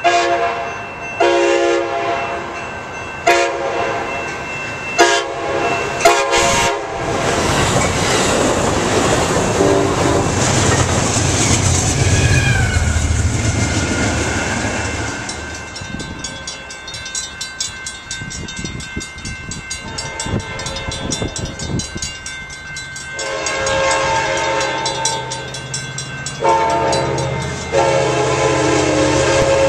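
Passenger-train locomotive air horn sounding a series of blasts for a grade crossing, then the train rumbling past. Grade-crossing bells ring in the middle, and near the end the horn sounds again, with a long final blast.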